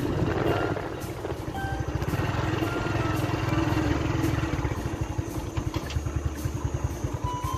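Small motorcycle engine running at low speed with a steady, fast low pulsing, as it climbs a slope and rolls into a parking area.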